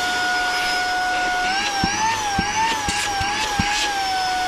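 Saker cordless mini vacuum cleaner running, its small motor giving a steady high whine. From about a second and a half in, the pitch wavers up and down for a couple of seconds, with several light clicks, then it settles back to steady.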